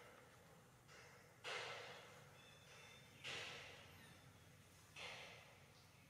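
Faint breathing: three exhales just under two seconds apart, each starting sharply and fading out.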